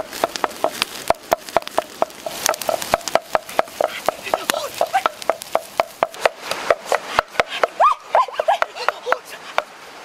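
Open wood fire crackling, with sharp, irregular pops several times a second.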